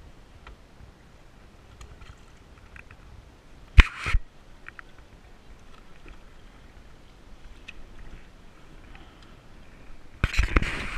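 Action camera being handled and repositioned: two sharp knocks about four seconds in, then loud rubbing and crackling against the microphone near the end.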